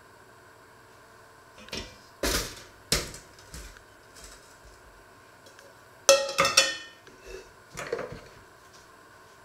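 Metal kitchen bowls being picked up and set down on a wooden worktop: a few knocks and clatters, then a louder clank about six seconds in that rings briefly, and a couple of lighter knocks after.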